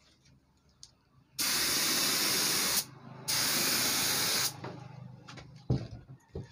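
Gravity-feed air spray gun spraying finish in two bursts of hiss, each about a second and a half long, with a brief pause between. A low thump follows near the end.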